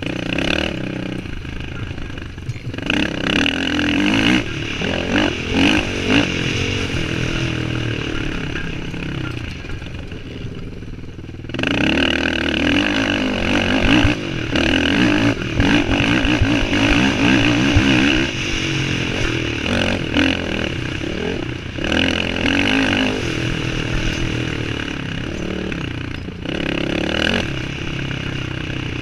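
Suzuki LT-R450 sport quad's single-cylinder four-stroke engine running hard under load, the revs rising and falling as the throttle opens and closes. About nine seconds in it eases off, then picks up sharply a couple of seconds later.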